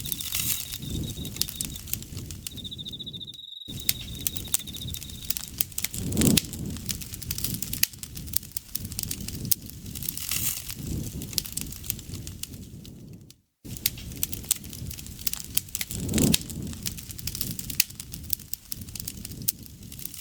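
Wood campfire crackling with many sharp pops and snaps over the low rush of the flames, swelling briefly twice. A single insect trills at a steady high pitch for the first few seconds. The sound cuts out completely for a moment twice.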